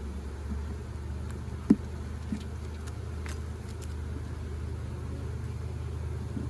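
Honeybees buzzing around an open hive as a steady low hum, with one sharp click a little under two seconds in.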